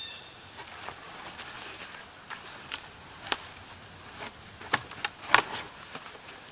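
Several sharp, irregularly spaced knocks and cracks of wood being chopped or broken, the loudest about five seconds in.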